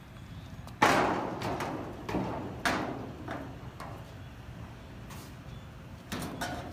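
Footsteps thudding on metal bleachers, each step ringing briefly, the loudest about a second in and more around two to three seconds in. Near the end, a couple of lighter knocks as a laptop and phone are set down on the metal bench.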